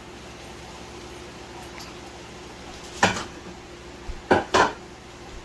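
A cooking utensil knocks against a pot of curry three times, once about three seconds in and twice in quick succession near the end, over a faint steady hum.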